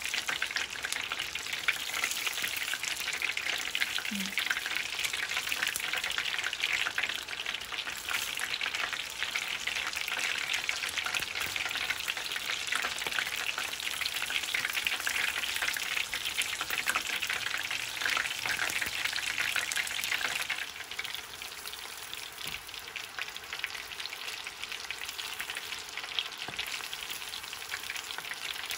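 Breaded shrimp deep-frying in oil heated to 180 °C, a dense, steady crackling sizzle. The sizzle eases and gets a little quieter about two-thirds of the way through.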